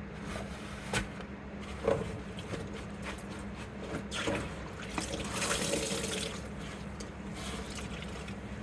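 Water splashing and dripping as a soaked cloth flag is squeezed out by hand in a basin, louder about five seconds in, with a few soft knocks and a steady low hum underneath.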